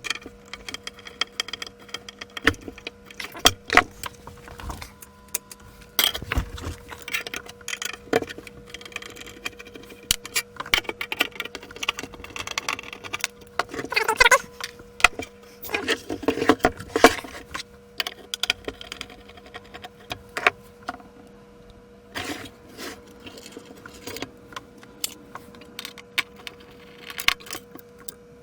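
Metal parts and hand tools clinking and rattling irregularly as a lab instrument's motor and valve assembly is taken apart by hand, with a couple of short squeaks in the middle and a faint steady hum underneath.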